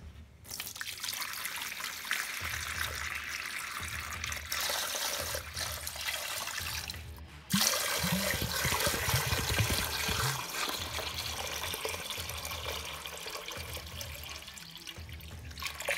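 Fresh water poured from a bottle into a shallow plastic water dish, splashing steadily; the pouring stops briefly about seven seconds in and then goes on a little louder.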